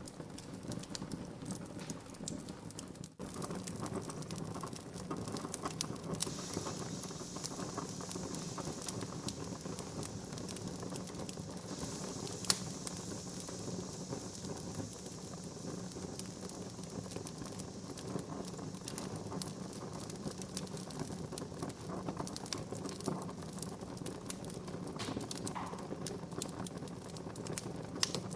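Wood fire burning in a fireplace: dense crackling and snapping of the logs over a low rumble of flame. A hiss runs from about six to sixteen seconds in, and there is one sharp, louder pop about twelve seconds in.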